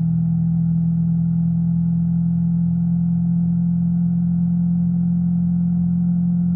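Yamaha R3's parallel-twin engine running at a steady pitch while the motorcycle cruises, revs held constant throughout.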